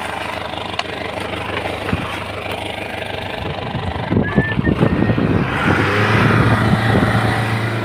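Truck engine running steadily, getting louder and fuller about five and a half seconds in.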